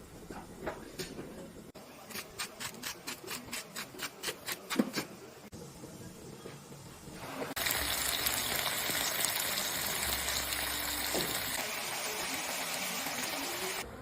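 A knife chopping on a cutting board in quick even strokes, about four or five a second. From about halfway in, onion and saffron milk-cap mushrooms sizzle steadily in hot olive oil in a frying pan.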